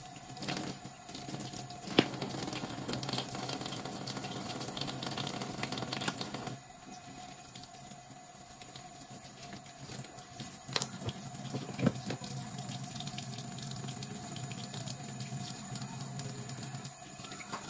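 Kitchen tap running into a stainless steel sink, the water splashing over hands and makeup brushes as they are rinsed and rubbed in a soapy palm. The water is louder for the first six seconds or so, then quieter, with a sharp knock about two seconds in and two more past the middle.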